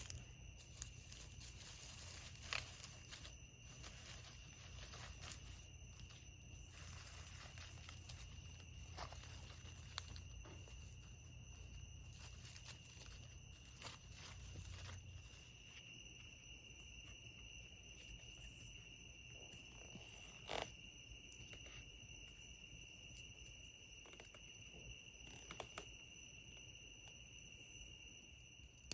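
Faint steady chorus of night insects such as crickets, a continuous high trill, with a soft noisy haze that stops about halfway and occasional small clicks and taps.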